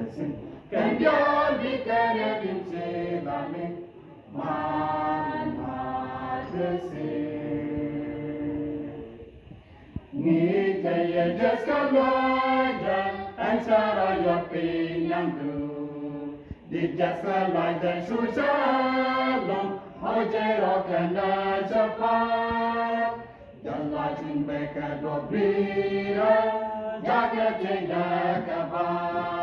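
Small robed church choir singing a gospel hymn a cappella, in sung phrases separated by brief pauses.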